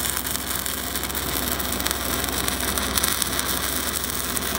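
Stick-welding arc from a 6010 electrode running a downhill root pass on steel pipe: a steady crackling hiss with fine snaps throughout, the rod held at a tight arc length.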